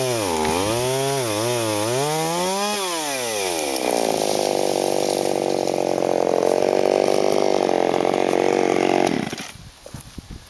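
Chainsaw with a blunt chain, revved up and down several times, then held at full throttle for about five seconds as it cuts a branch, shutting off suddenly about nine seconds in. Faint crackling follows.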